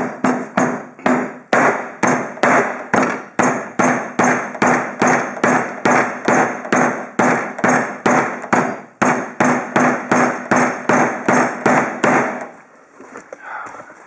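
An HDMI cable being hit over and over in a crush test, with rapid, even blows about three a second that flatten the cable. The blows stop shortly before the end.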